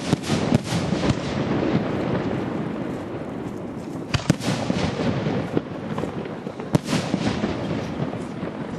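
Fireworks display: sharp aerial shell bangs near the start, a pair about four seconds in and one near seven seconds, over continuous crackling.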